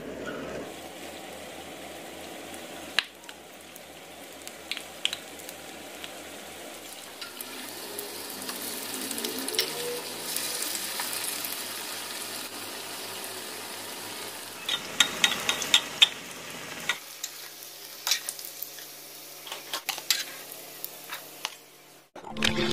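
Flour-battered omelette deep-frying in hot oil in a wok: a steady sizzle from the moment it goes in, with scattered sharp pops that come thicker in the last several seconds.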